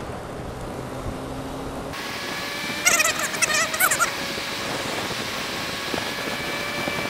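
Helmet-camera ride on a Suzuki Bandit's inline-four motorcycle on a wet motorway: steady engine and wind noise, with hiss from tyres on the soaked road. About three seconds in comes a loud burst of high, wavering squeals lasting about a second.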